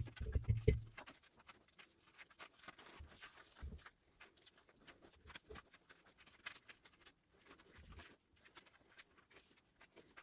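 Sped-up handling sounds of stripping PVC insulation off heavy copper wire: a rapid run of small clicks and rustles, with a few dull knocks, the loudest cluster at the very start.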